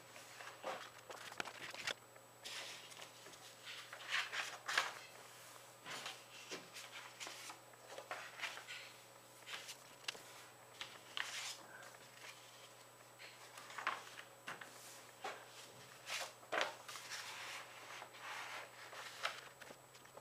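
A sheet of A4 paper being folded and creased by hand: irregular rustling and crinkling as the paper is bent, pressed and smoothed flat, with a few louder rustles.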